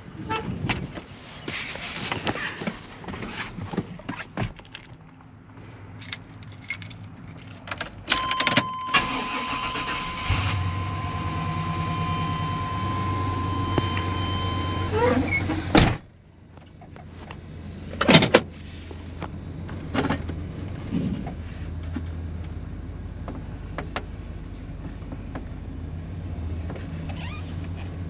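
1990s Chevrolet pickup being started: clicks and knocks, a steady warning tone, then the engine catches about ten seconds in and settles into a steady idle. A hard knock like a door shutting comes about sixteen seconds in, another about two seconds later, and the engine keeps idling through the rest.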